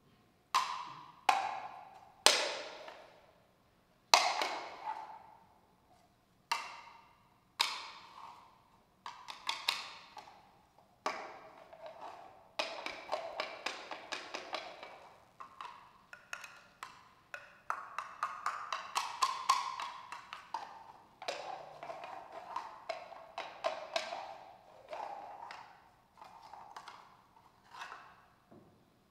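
Hand-played plant-material percussion: single sharp strikes that ring with a wooden, woodblock-like tone and die away, then from about twelve seconds in quicker clusters of hits, thinning out again near the end.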